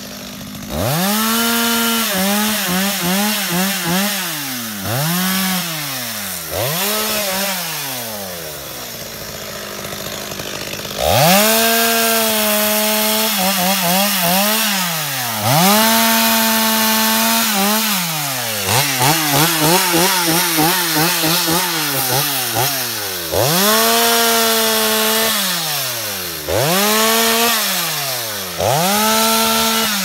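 Two-stroke chainsaw cutting through branches and brush, revved again and again to a high steady whine and let fall back toward idle between cuts, with bursts of quick throttle blips. There is a quieter low-running stretch about a third of the way in.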